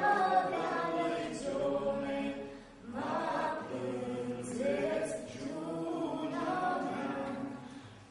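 A group of voices singing an Aromanian folk song without accompaniment, in long held notes. There is a short break for breath about three seconds in, and the singing dies away near the end.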